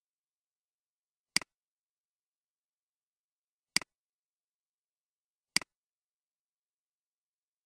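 Three sharp computer mouse clicks about two seconds apart, each a quick press followed by a softer release.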